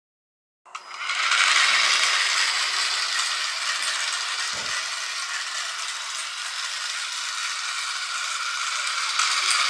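Small electric model car driving over stone paving: its geared motors whir and the chassis and wheels rattle in a steady mechanical noise that starts abruptly under a second in, with one low bump about halfway.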